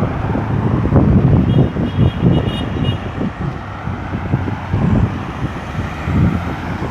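Road traffic going round a busy roundabout: vehicle engines and tyres in a continuous low rumble, with wind buffeting the microphone. A faint high pulsing tone sounds for about a second and a half, starting about a second and a half in.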